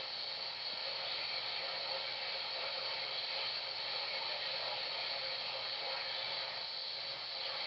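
Steady radio static from a weather radio receiver: an even hiss with a faint steady tone running through it.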